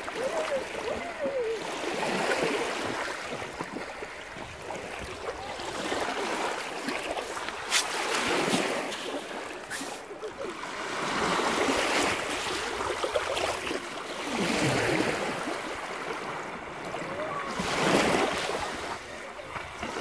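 Small sea waves washing up a shallow pebble shore and draining back, the surf swelling and falling away every few seconds.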